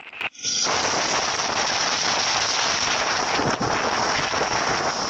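Heavy rain pouring down, a dense steady hiss that starts abruptly about half a second in.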